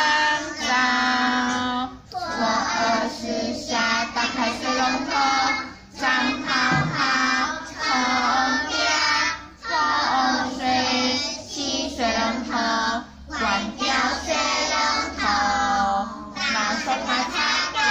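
Children singing a nursery rhyme together, line after line with short breaks between phrases.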